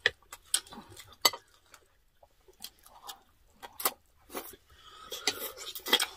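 Metal spoon and fork clicking and scraping on ceramic plates during a meal, with chewing and mouth sounds in between; irregular sharp clicks, busier near the end.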